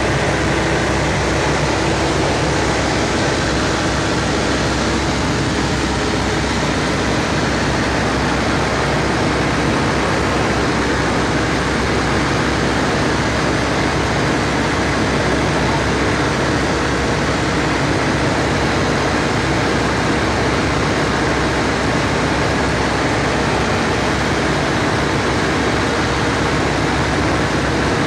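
Cabin noise of a 1946 Aeronca Champ in flight: the small piston engine and propeller droning steadily under a rush of wind.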